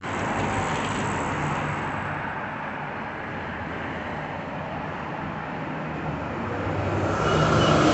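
City street traffic, with trams and cars going by. It is a steady rumble that grows louder about seven seconds in, where a faint hum and a whine come in.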